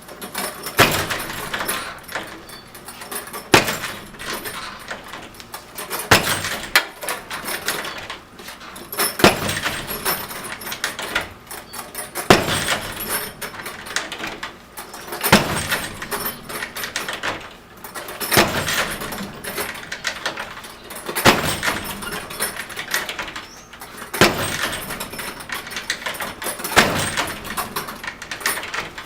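A front door being struck again and again by a swinging 90-pound bag, about ten heavy blows roughly three seconds apart. The door and its hardware rattle between the blows.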